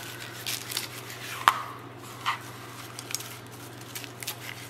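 Kitchen knife chopping fresh cilantro on a plastic cutting board: a run of irregular light knocks of the blade on the board. A faint steady low hum runs underneath.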